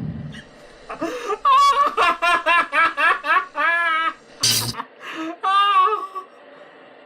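High-pitched giggling laughter in quick rhythmic bursts, broken by a short sharp noise about four and a half seconds in, then a few more giggles.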